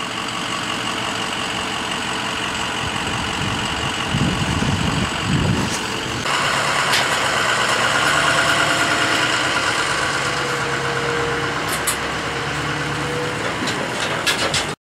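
Ford pickup truck's engine running, towing a trailer loaded with a tractor. It idles steadily, then grows louder about six seconds in as the truck pulls away, and cuts off suddenly at the end.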